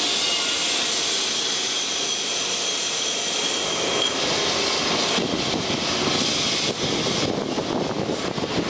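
Lisbon Remodelado tramcar running on street rails close below: a steady rumbling rush of wheels and running gear, with a faint high whine in the first few seconds. From about five seconds in it turns into a rougher rattling clatter.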